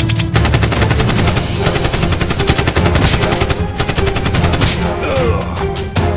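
Rapid automatic gunfire sound effect, about ten shots a second, over background music, with a short break a little before 5 s.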